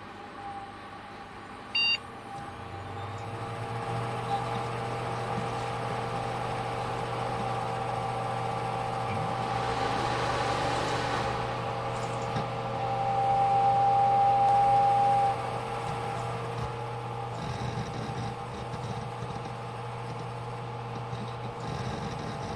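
Desktop computer running: a single short beep about two seconds in, then a steady electrical hum and whirring fan noise. A louder whine rises for a couple of seconds near the middle, then settles.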